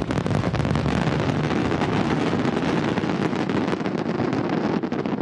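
Fireworks barrage: many shells bursting close together in a rapid, unbroken string of bangs and crackles over a constant low rumble.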